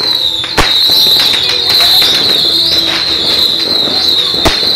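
New Year's midnight fireworks and firecrackers going off all around: a stream of cracks and pops, with sharp bangs about half a second in and near the end, over a steady wavering high-pitched tone.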